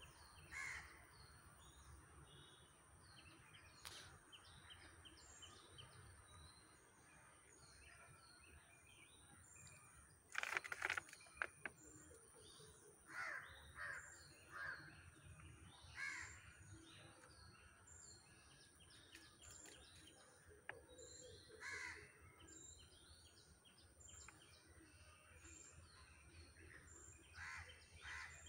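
Faint outdoor birdsong: small birds chirping all through, and crows cawing now and then, loudest about ten seconds in. A steady thin high tone runs underneath.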